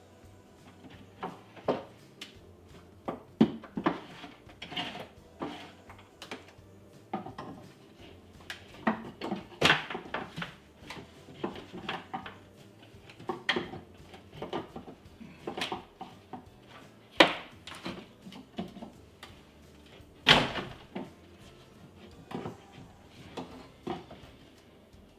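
A small pry bar working at a wooden kitchen wall cabinet and the sheetrock behind it: irregular knocks, clunks and taps. The two loudest knocks come in the second half.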